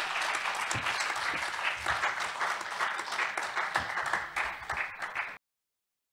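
Audience applauding with many hands clapping, cut off suddenly a little over five seconds in.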